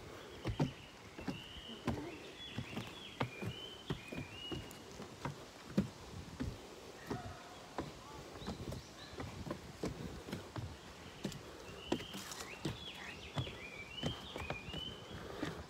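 Footsteps on wooden trail steps, regular knocks about one to two a second, with a bird singing a phrase of short high chirps about a second in and again near the end.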